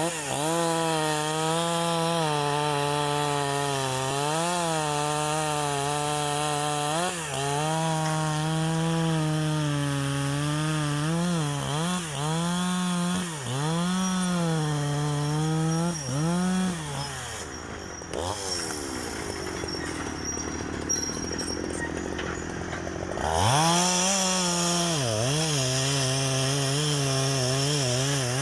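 Two-stroke chainsaw cutting wood at high revs, its pitch dipping again and again as it bogs in the cut. About eighteen seconds in it drops back to a lower speed, then revs up again near the end.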